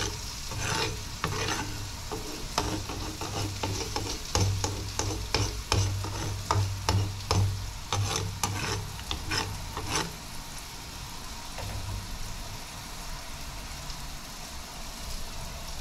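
A metal spoon stirring and scraping yogurt curry in a frying pan, with short repeated strokes against the pan while the curry sizzles on the heat. The stirring stops about ten seconds in, leaving the quieter sizzle.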